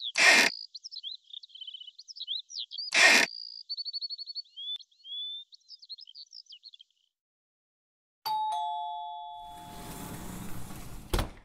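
Cartoon birdsong of quick chirps and trills, broken by two short loud bursts. About eight seconds in, a two-note ding-dong doorbell rings and fades. It is followed by a rushing hiss of a sliding door opening, which ends in a sharp click.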